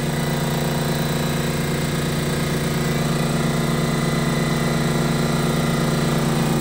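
Harbor Freight Fortress 27-gallon, 1.6 HP air compressor running up close, a steady, even pitched drone with no change in speed or level.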